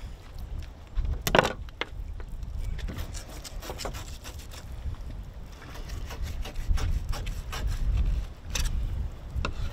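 A fillet knife cutting and scraping through a mahi-mahi fillet on a cutting board, in many short clicks and scrapes with a louder knock about a second in, over a steady low rumble.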